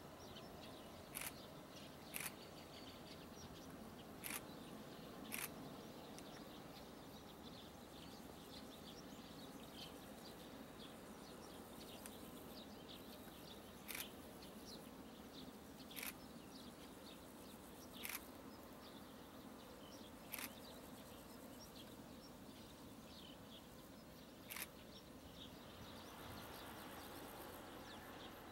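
Quiet outdoor ambience: a low steady rumble with faint bird chirps, broken by about nine short sharp clicks spaced unevenly, several of them about two seconds apart.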